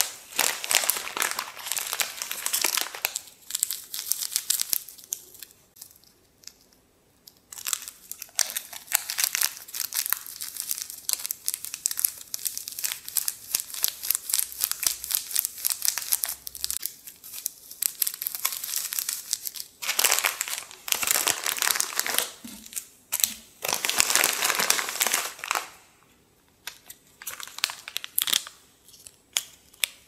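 Plastic instant-noodle wrapper and a paper soup-powder sachet crinkling and rustling as they are handled and torn at, in several bursts with short pauses between.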